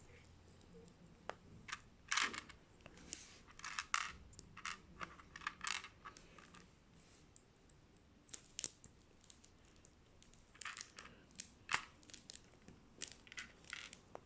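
Irregular small clicks, clinks and brief rustles of little plastic minifigure parts being handled and pressed together, the sharpest about two, four, nine and twelve seconds in.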